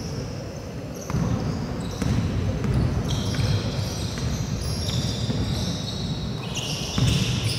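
A basketball dribbled on a wooden court, the bounces echoing around a large hall. Short high squeaks of sneakers on the floor come in from about three seconds in.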